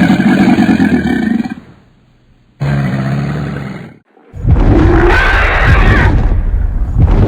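A large animal's vocal calls: a roar about a second and a half long, then a lower, shorter growl, followed after a sudden cut by a loud, rough, rumbling stretch.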